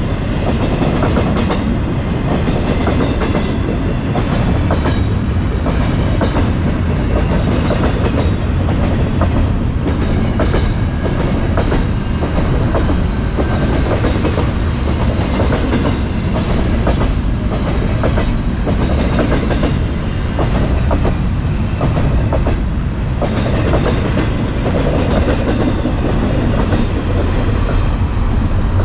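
GO Transit bilevel commuter coaches passing close by at speed: a loud, steady rolling of steel wheels on rail with a rhythmic clickety-clack of wheels over rail joints.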